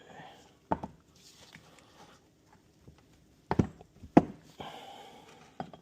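A few sharp metallic clicks and knocks, four in all with the loudest about four seconds in, from a small flathead screwdriver being worked against a hydraulic cylinder part while prying at a seal.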